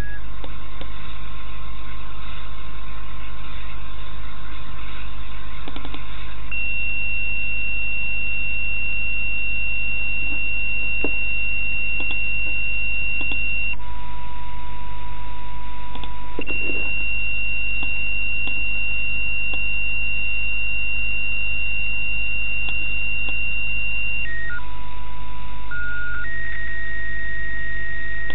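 Software-defined radio receiver's audio: steady hiss and hum with one held whistle tone that steps between a lower and a higher pitch every few seconds, with a few quick pitch steps near the end.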